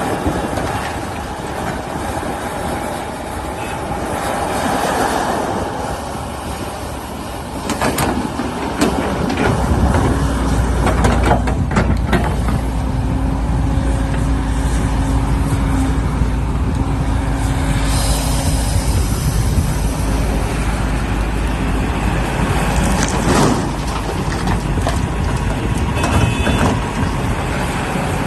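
Excavator's diesel engine running and working harder from about ten seconds in, with a deep steady rumble and scattered clanks and knocks.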